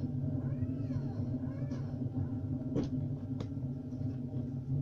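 Steady low hum with two sharp clicks about three seconds in, from a craft knife cutting through card on a cutting mat. Soft rising-and-falling voice-like glides in the first two seconds.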